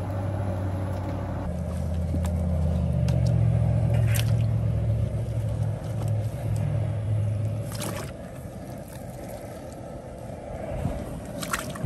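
Chunks of bone-in wild pork dropped into a big pot of stock, with a few sharp splashes and knocks, the loudest about 4 and 8 seconds in, over a low rumble that eases off after about 8 seconds.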